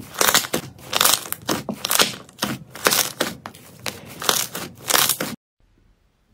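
Hands squeezing and pressing a crispy-skinned cloud slime, its crust crunching and crackling in repeated bursts, about two a second. The crunching cuts off suddenly about five seconds in, followed by near silence.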